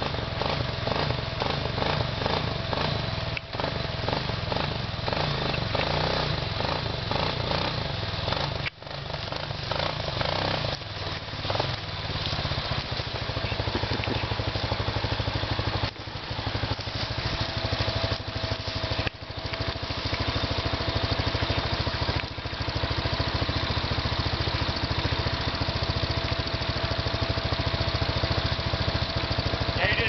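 ATV engine running as the quad creeps down a bank, its pitch shifting with the throttle in the first half, then settling to a steady idle from about halfway through.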